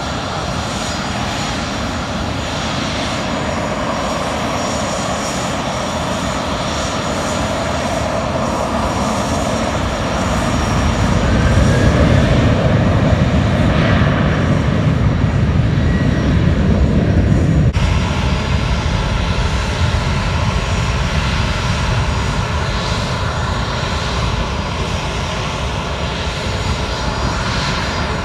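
Jet engines of a Boeing 737-700 running as it taxis and powers up for takeoff. The sound grows louder from about a third of the way in, with a faint rising whine, peaks through the middle, then drops suddenly to a quieter, steady engine sound.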